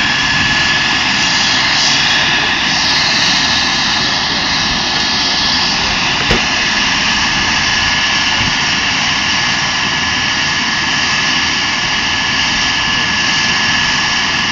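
Eurocopter EC135 twin-turbine helicopter running on the ground with its rotors turning, kept running for a hot load: a loud, steady rush of turbine and rotor noise with a steady high whine. One brief knock about six seconds in.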